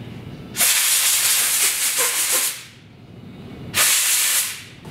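Two blasts of compressed air from an air blow gun, cleaning grime off a table saw's blade elevation gear. The first blast lasts about two seconds; the second, about a second long, comes near the end.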